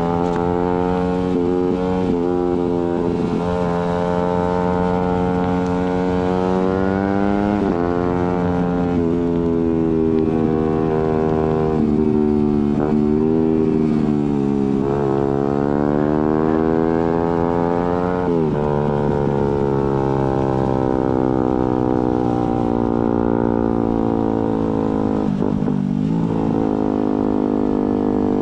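Suzuki GSX-R150's single-cylinder engine through an aftermarket Prospeed exhaust, pulling through the gears: the engine note climbs under throttle and drops abruptly at each clutchless quickshifter upshift, several times, over wind and road noise.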